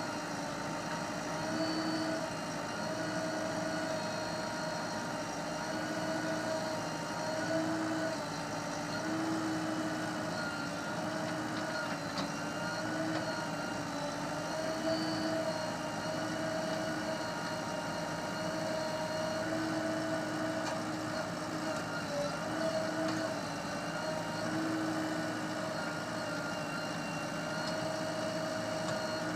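Heavy-machine diesel engine running steadily at low revs, its pitch rising and dipping slightly every few seconds as the load comes and goes.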